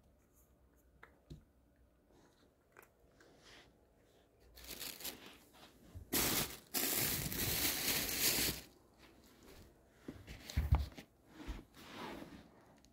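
A cat chewing dry treats, heard as faint scattered crunches. From about the middle, a loud crinkling rustle runs for a few seconds, then a few soft thumps and rustles follow.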